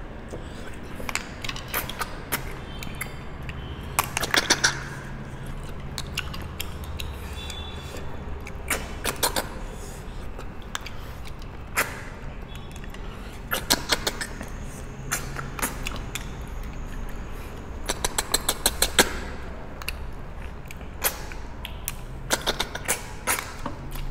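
Snails being sucked out of their shells by mouth: short runs of quick slurps every second or two.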